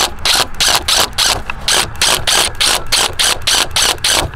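Cordless DeWalt drill with a 1/4-inch bit drilling a hole through a plastic splitter's mounting tab, with a rapid, even clicking about four times a second over the motor's steady hum.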